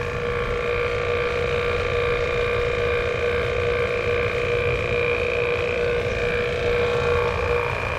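Robinair 6 CFM vacuum pump running steadily with a constant whine while evacuating an air conditioner's line set, which is at a deep vacuum of about 400 microns.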